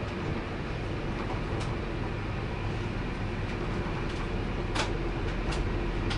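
Passenger train running, heard from on board: a steady rumble and hum with a few sharp clicks, the loudest about three-quarters of the way through.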